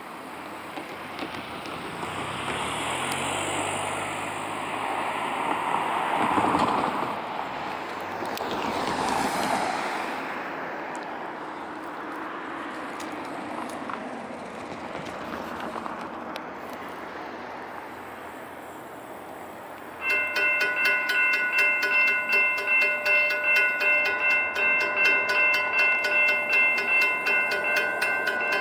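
A broad rushing noise swells and fades twice in the first half. About twenty seconds in, a railroad grade-crossing warning bell starts ringing, striking about twice a second: the crossing has activated for an approaching train.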